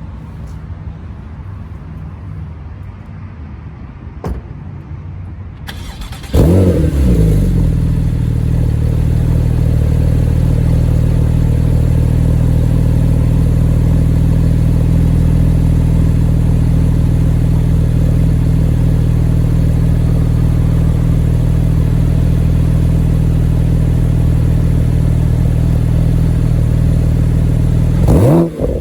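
A 2014 Porsche 911 Turbo's twin-turbo flat-six, fitted with an aftermarket exhaust, is heard from behind the car. About six seconds in it comes to life, swinging in pitch as it flares. It then settles into a loud, steady idle and revs briefly near the end.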